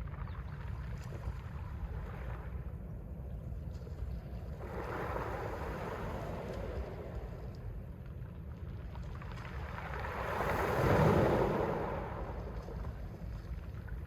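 Small Mediterranean waves washing onto the shore, two surges of surf, the second louder, about eleven seconds in. A steady low rumble of wind on the microphone runs underneath.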